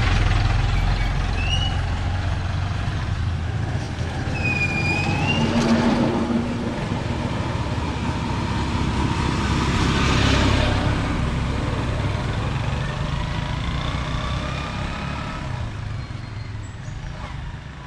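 Road vehicle engines: a pickup truck goes by close at the start, then a Honda CD 80 motorcycle runs as it rides off, and the engine sound fades toward the end.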